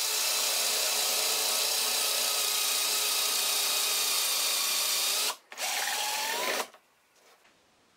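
Power drill boring a hole into the end grain of a wooden curtain rod with a wood drill bit. It runs steadily, stops for a moment about five seconds in, runs again briefly with a rising whine as it speeds up, then stops.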